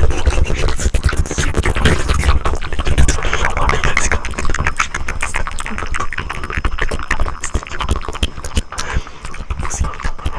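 Close-miked ASMR mouth sounds: a rapid, continuous stream of wet clicks and pops, getting somewhat quieter in the second half.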